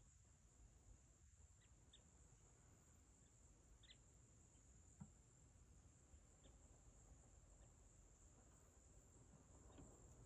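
Faint, steady, high-pitched chorus of crickets at dusk, with a few short, high chirps scattered through it.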